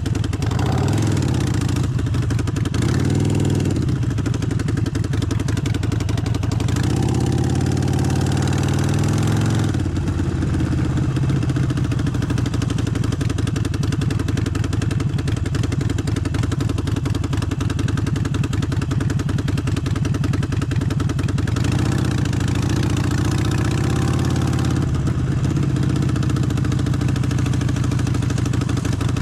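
Harley-Davidson Forty-Eight's air-cooled Sportster V-twin running, with louder stretches under throttle in the first ten seconds and again a little past the middle, and an even, lower run in between.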